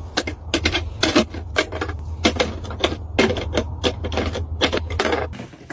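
Rapid, irregular clicking and tapping, several knocks a second, over a steady low hum that stops shortly before the end.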